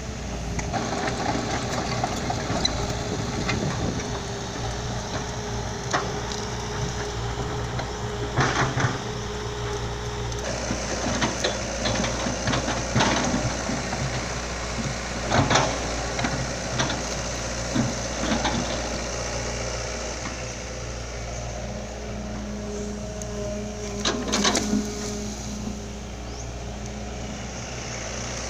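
Heavy diesel engine running steadily, with scattered clanks and knocks standing out over it.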